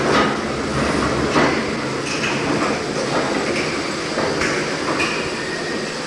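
The Hesketh steam winding engine, a 500 horsepower twin-cylinder Worsley Mesnes colliery winder, running with a steady mechanical din and repeated heavy knocks. The two strongest knocks come at the start and about a second and a half later, then weaker ones follow every half second or so.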